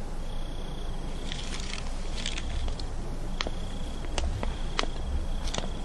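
Quiet ambience: a faint high insect trill that comes and goes, with a few scattered light ticks.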